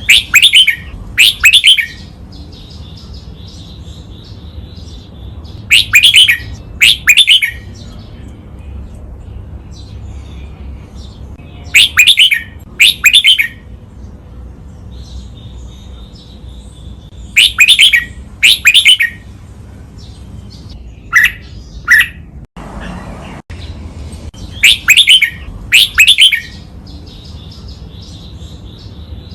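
Red-whiskered bulbul singing loud, clear phrases in pairs, one double phrase about every six seconds, with quieter high twittering between them. The bird is heard over a low steady hum.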